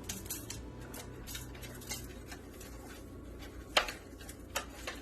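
Scattered light clicks and taps of kitchen dishes and utensils being handled, with one sharper knock near the end.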